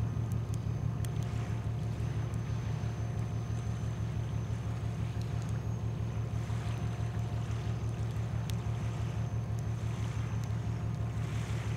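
A boat's diesel engine running steadily: a low drone with a fast, even pulse, with a little wind noise over it.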